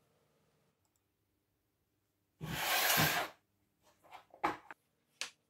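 A loud hiss about a second long, then a run of short sharp clicks from a plastic digital-caliper case being handled and unlatched.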